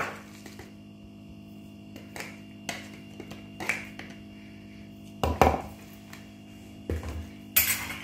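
Breadcrumbs being added to a wooden bowl: scattered light knocks and taps against the bowl, with a louder knock a little past halfway and a short rustling pour near the end, over a steady low hum.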